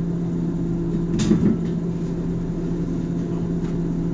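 Steady low drone of a rail vehicle heard from its cab, with a sharp knock about a second in and a fainter one near the end.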